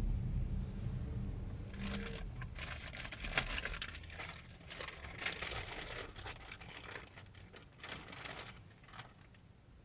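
Irregular crinkling and rustling close to the microphone inside a car cabin, like something being handled, from about two seconds in until near the end. Under it a low road and engine rumble dies away as the car comes to a stop in traffic.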